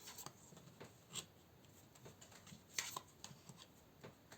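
Faint taps and light rustles of tarot cards being drawn and laid down on a table, a few soft clicks scattered through otherwise near silence.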